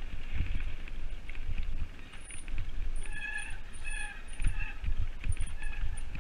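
Singlespeed hardtail mountain bike descending a rocky forest trail: a steady rumble of tyres on dirt and stones with frequent knocks and rattles as the rigid rear end takes the bumps. There are a few short high-pitched squeals about three to four seconds in.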